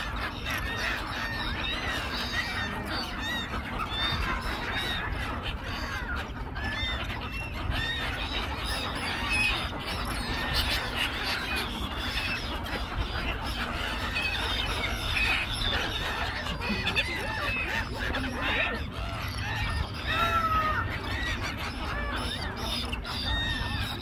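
A large flock of gulls calling continuously, many short calls overlapping one another, over a steady low rumble.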